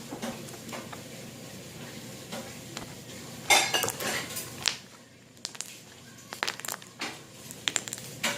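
Slime being poked and squished by hand, making a louder sticky burst about three and a half seconds in, then a run of short sharp clicks and pops.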